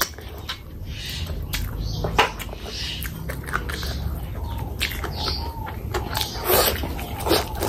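Close-miked wet chewing and lip-smacking of a mouthful of oily curried chicken eaten by hand, full of small clicks and squelches, with a couple of louder wet smacks near the end.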